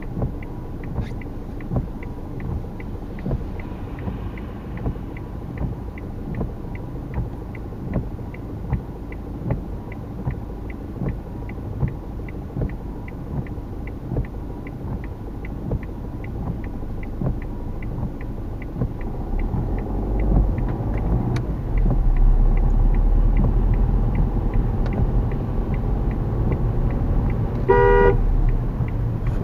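Inside a car, the turn-signal indicator ticks steadily, about three clicks every two seconds, while the car waits. About twenty seconds in, the car pulls away and a low rumble of engine and wet road rises. Near the end a car horn gives one short toot.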